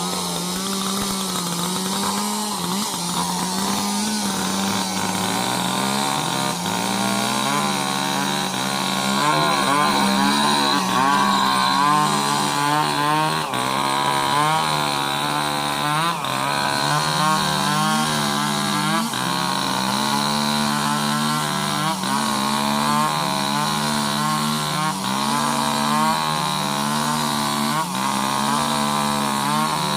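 Two two-stroke chainsaws running together, their engine pitch repeatedly rising and dropping as they rev and load up in cuts through sengon wood.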